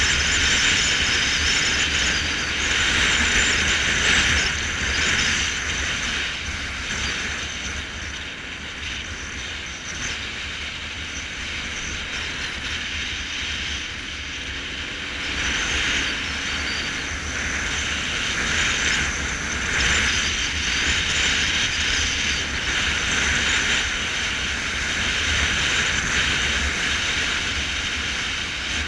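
Motorcycle riding at steady speed: continuous wind and road noise with a low rumble underneath, swelling and easing a little as the bike follows the bends.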